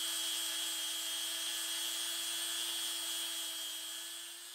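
Angle grinder with a sanding disc running steadily against a knife handle: a constant high motor whine over a grinding hiss, fading slightly near the end.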